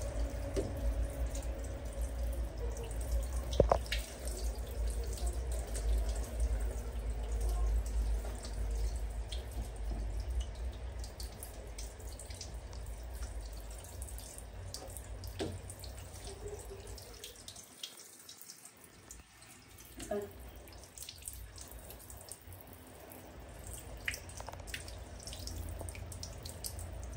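Handheld shower head spraying water onto a baby monkey's wet fur and splashing onto a plastic stool and tiled floor, with dripping. The spray runs steadily and eases off briefly about two-thirds of the way through.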